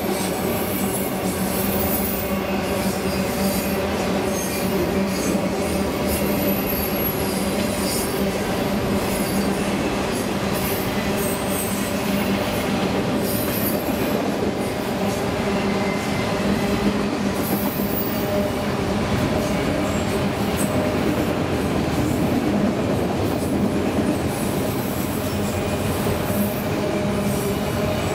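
Freight train autorack cars rolling past: a steady rumble of steel wheels on rail, with short high-pitched wheel squeals coming and going.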